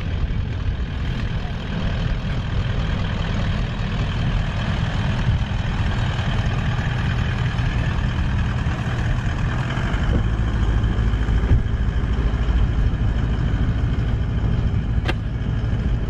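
A four-wheel drive rolling slowly along a dirt road: a steady low engine rumble with tyre noise, and a couple of sharp clicks near the end.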